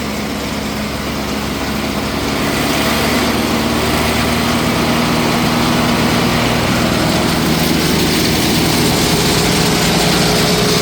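Crary Bearcat CH611DH wood chipper's diesel engine speeding up to full throttle over the first few seconds, then running steadily at full speed with the feed wheel engaged.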